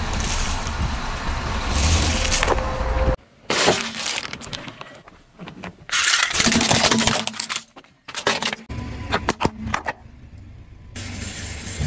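A car tyre rolling over things in a series of short cuts. First a popcorn bucket full of popcorn crunching under the tyre over the rumble of the car, then sharp cracks and a loud stretch of plastic toys snapping and breaking, then scattered crackles of a small plastic bottle being squashed.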